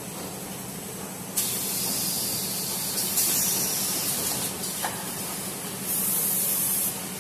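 Toilet paper roll packing machine running with a steady hum, its pneumatic cylinders venting compressed air in sudden hisses: a long one starting about a second and a half in, and a shorter one near the end, with a click between them.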